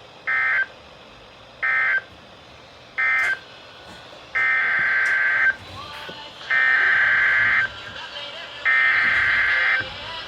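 Emergency Alert System SAME data bursts from a weather radio broadcast, the warbling two-tone digital sound. Three short end-of-message bursts mark the close of the flood warning. About four seconds in come three longer header bursts that open the next alert.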